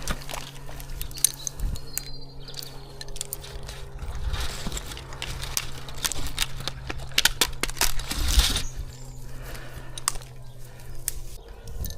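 Clicks and clinks of climbing hardware and rope, with rustling and crackling of pine branches as the climber moves through them. A steady low engine hum runs underneath and cuts off near the end.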